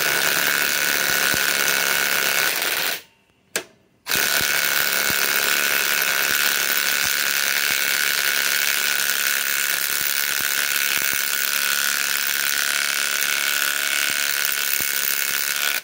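Ryobi PSBIW25 compact cordless impact wrench hammering steadily, driving a 6-inch lag bolt into a log. The lag is barely turning, so the compact wrench is near the limit of what it can drive. It runs for about three seconds, stops briefly with one short blip, then hammers again without a break and cuts off right at the end.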